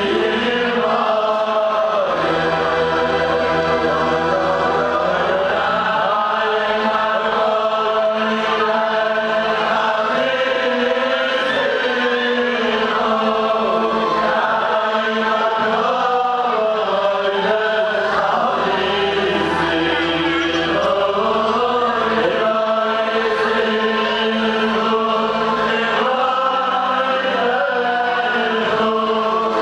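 Many men singing a Hasidic melody together, steady and continuous.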